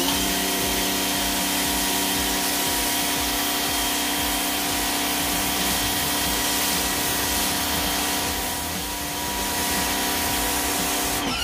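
McGregor 1400-watt electric pressure washer running steadily, its motor and pump giving a constant whine under the hiss of the high-pressure water jet striking concrete. The sound starts and cuts off suddenly.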